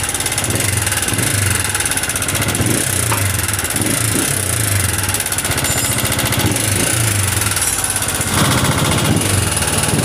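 Honda CG125 air-cooled single-cylinder pushrod four-stroke engine idling with a loud, rapid mechanical clatter from the engine itself rather than the exhaust, a little louder about eight seconds in. The noise comes from an engine run without oil, with a loose piston in a worn bore, worn push rods and loose valves.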